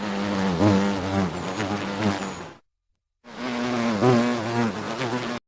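A flying insect buzzing steadily with a slightly wavering pitch, in two bursts of about two and a half seconds each, separated by a short silence.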